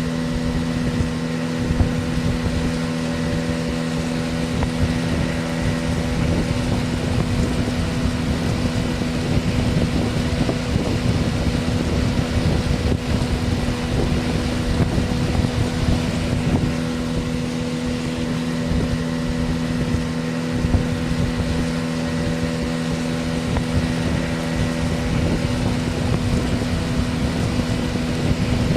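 Motorboat engine running at a steady cruising note, with a rush of wind on the microphone.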